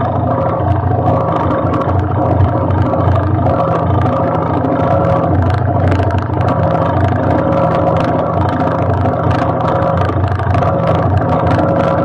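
Quad-bike engine running at a steady idle close by.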